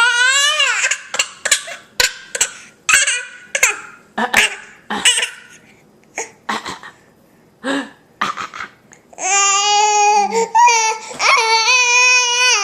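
A baby's voice: a run of short, sharp bursts, about two a second, then from about nine seconds in a long, high-pitched wailing cry.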